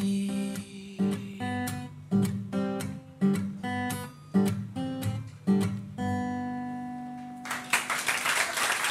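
Acoustic guitar closing a song: a string of strummed chords, about two a second, ending on a held chord that rings out. Audience applause starts near the end.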